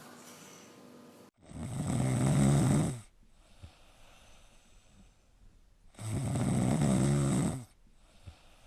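A pet snoring loudly: two long, low-pitched snores about four and a half seconds apart, each lasting about a second and a half.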